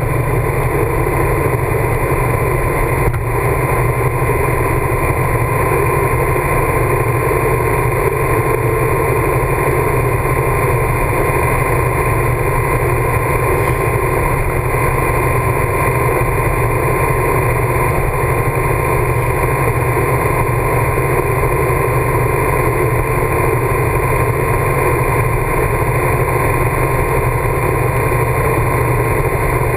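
Motorcycle riding at a steady highway speed: a constant drone of engine and wind noise that does not change.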